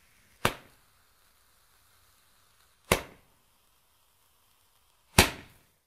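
A Roman candle firework firing three shots, each a short whooshing pop with a brief fading tail, about two and a half seconds apart.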